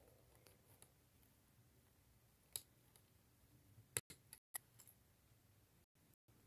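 Near silence with a few faint clicks of small plastic Lego pieces being handled, one about two and a half seconds in and a short cluster around four to five seconds in.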